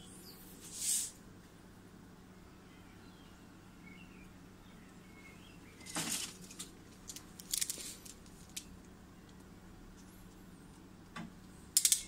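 Quiet hand handling of stripped wire ends being twisted together. There are brief rustles about a second in and again between about six and eight seconds, and a few light clicks near the end, over a steady low hum.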